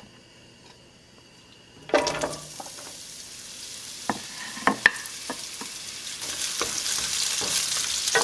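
Sliced carrots going into hot oil in a sauté pan: the sizzle starts suddenly about two seconds in and keeps growing louder. A wooden spoon knocks against the pan a few times as the carrots are pushed around.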